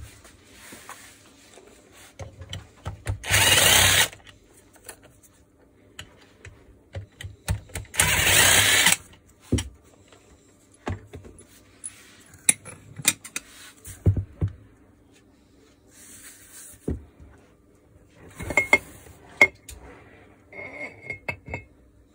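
A power driver runs in two short bursts of about a second each, some four seconds apart, undoing the bolts that hold the barrel of a Makita HM1307C demolition hammer. Light clicks and knocks of parts being handled fill the gaps, with a few sharp metal clinks near the end.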